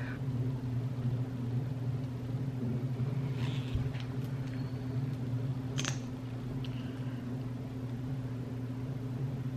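Steady low hum of room noise, with a few faint clicks and handling sounds as a plastic lip gloss tube is twisted open and its applicator wand pulled out.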